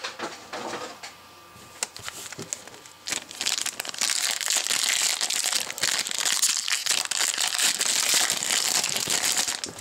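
Foil wrappers of 2014 Panini Select football card packs crinkling as they are handled and opened. A few light clicks sound in the first three seconds, then the crinkling runs steadily from about three seconds in.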